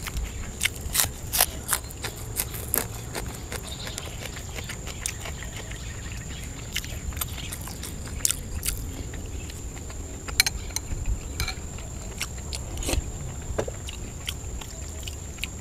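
Close-up mouth sounds of a man chewing food: wet smacks and clicks, several in the first few seconds and scattered singly later, over a steady high-pitched whine.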